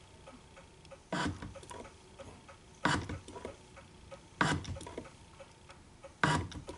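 Shop-built hand shaper taking cutting strokes in a 1018 steel block: four sharp, scraping strokes of the tool bit and ram, about one every one and a half to two seconds, each followed by a lighter click.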